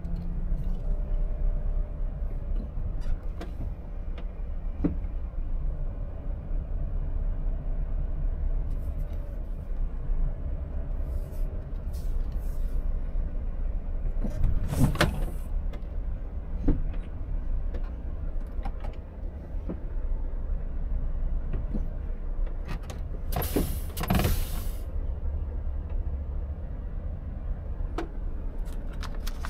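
Volvo FH truck's diesel engine running steadily at low revs, heard from inside the cab. Brief knocks and rustles cut in over it, the loudest about halfway through and a longer one about five seconds before the end.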